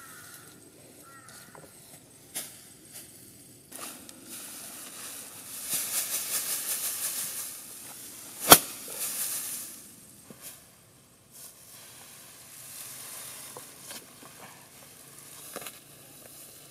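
Tall grass stems rustling and swishing as they are pulled, cut and gathered by hand, with a stretch of rapid rasping a little before the middle and one sharp crack about halfway through.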